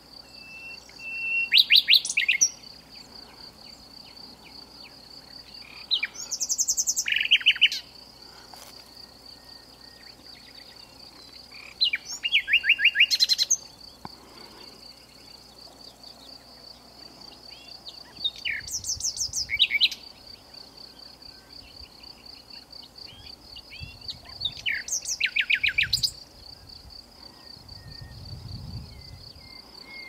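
Common nightingale singing from dense cover: five loud phrases of rapid repeated notes, each one to two seconds long and coming about every six seconds. Under it runs an insect's steady, pulsing high trill.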